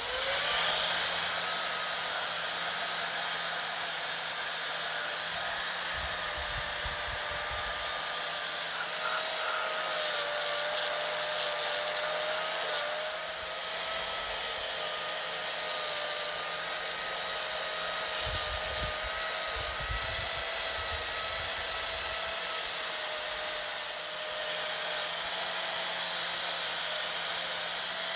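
Small high-speed power tool, such as a rotary tool or die grinder, running steadily with a slightly wavering whine over a hiss, cleaning up a motorcycle cylinder head.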